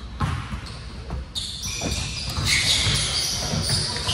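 Basketball bouncing on a gym floor during play, a series of dull thuds, with high-pitched squeaks over them.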